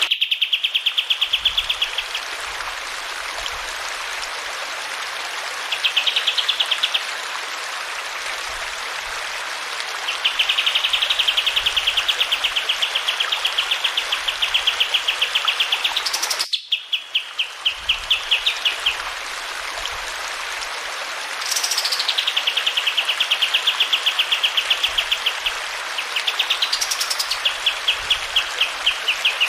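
A kapas tembak songbird singing long, rapid rolling trills, about ten notes a second and several seconds long, some phrases opening with a short rising note, over a steady rush of flowing water. The sound drops out briefly about halfway through.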